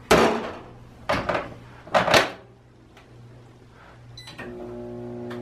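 Three knocks and clatters as a glass microwave turntable plate is handled and set down on top of a Sunbeam microwave oven. About four seconds in, the keypad beeps and the microwave starts running with a steady hum.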